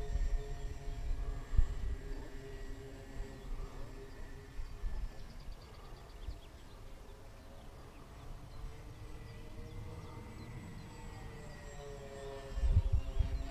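Distant whine of a four-engine foam RC plane's electric motors and propellers in flight, a steady drone that drifts slowly in pitch as it flies around. Wind gusts rumble on the microphone at the start and again near the end.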